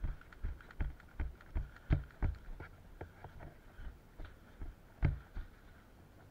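Running footsteps on a rubble-strewn concrete floor, about three steps a second. They slow after about three seconds, then stop after two last heavy steps a little past five seconds in.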